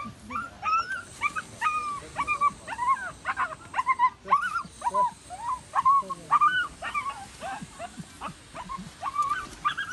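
A puppy trapped in a hole in a concrete wall, crying over and over in short, high, whimpering yelps, about two or three a second, the distress calls of a stuck young dog.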